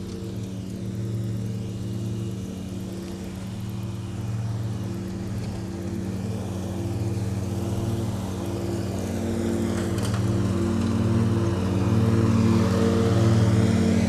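Riding lawn mower engine running steadily, growing gradually louder through the second half as the mower draws closer.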